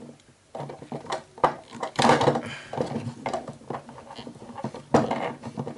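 Plastic Play-Doh playset pieces being handled: irregular clicks, knocks and rustles, loudest about two seconds in and again near five seconds.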